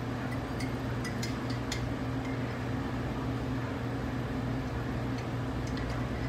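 A steady low background hum with a few faint, light clicks of a stainless steel measuring spoon touching a mug as it is dipped into the liquid and lifted out, a cluster in the first two seconds and a couple more near the end.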